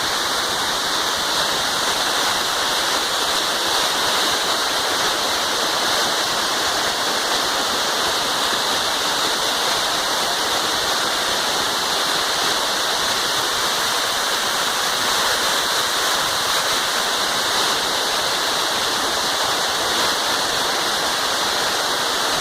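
Waterfall: water pouring and rushing in a steady, unbroken hiss.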